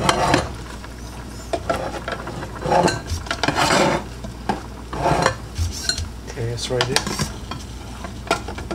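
Metal tongs stirring and lifting ramen noodles in a saucepan of boiling water, scraping and clinking against the pan in several separate bursts.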